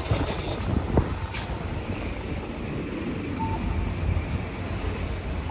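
Street traffic ambience: a steady low rumble of passing vehicles, with a sharp knock about a second in and a short high beep a little past halfway.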